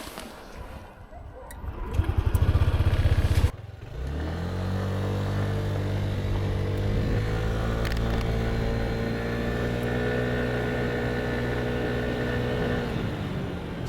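Yamaha Nmax 125 scooter being started: the starter cranks in rapid pulses for about a second and a half and stops, then the single-cylinder engine catches and settles into a steady idle.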